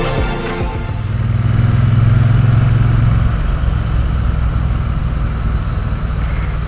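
Triumph Bonneville T100 parallel-twin engine running steadily under way, with wind rush, heard from the rider's seat. The engine note is strongest early on, then eases to a lower, steady hum about three seconds in.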